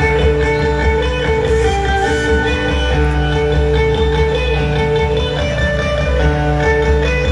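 Dayak dance music led by a plucked lute, the sape, playing a repeating melody over a steady low bass pulse.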